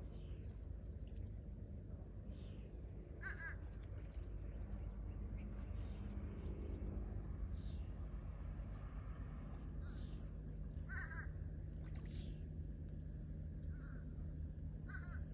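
A bird giving short calls a few times, the clearest about three seconds in, around eleven seconds in, and near the end, over a steady low rumble.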